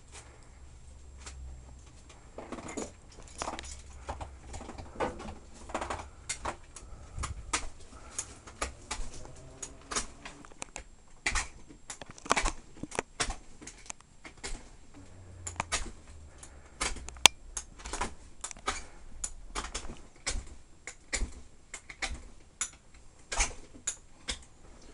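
Irregular clicks, taps and rustles, about one or two a second, from hockey goalie gear being handled and fastened close to the microphone.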